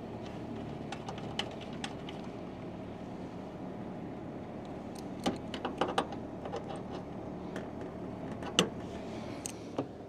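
Scattered light metallic clicks and taps as a valve core removal tool is unscrewed from a brass refrigerant service port and the port cap is screwed back on. A steady low hum runs underneath.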